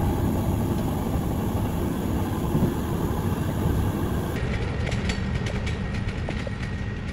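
A train running on the rails: a steady rumble and rattle, with a run of sharp clicks over the track in the second half.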